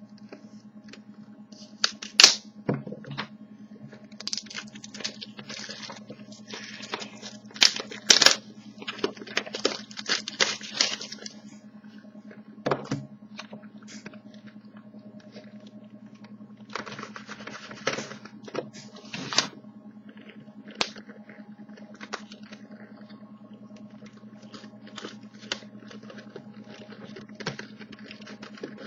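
Sealed trading-card box and its plastic wrapping being torn open and crinkled, with cards handled, in irregular rustling bursts and clicks that are busiest in the first half. A faint steady hum runs underneath.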